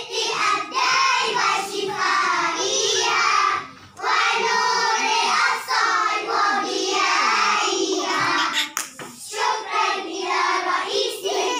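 A group of young children singing together in unison, in a choral recitation, with a single sharp knock about nine seconds in.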